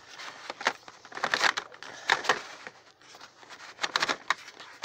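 Plastic dial on a Capsule Chix toy box being pressed and turned by hand, giving irregular clicks and crinkling from the cardboard-and-plastic packaging as it is worked to release a capsule.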